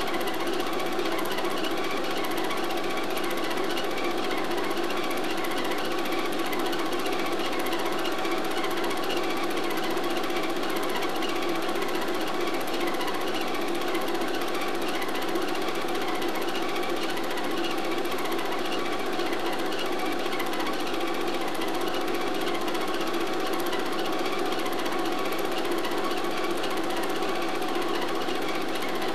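Film projector running: a steady, even mechanical clatter from the film transport.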